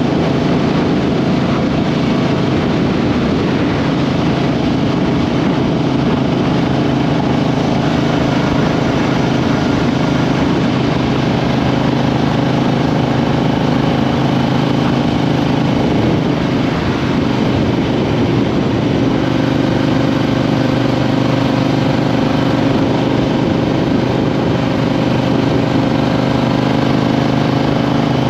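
Triumph Street Twin 900's parallel-twin engine running steadily while riding, heard from beneath the seat, with its pitch shifting a little about halfway through.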